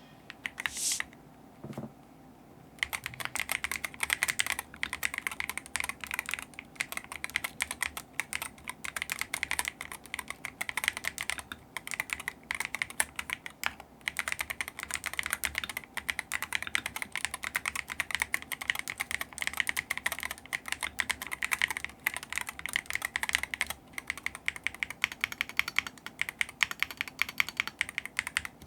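Fast typing on a Gravastar Mercury V75 PRO magnetic-switch keyboard fitted with Gateron Jade gaming switches: a dense run of keystrokes, with a few brief pauses. It starts about three seconds in, after a couple of isolated key sounds.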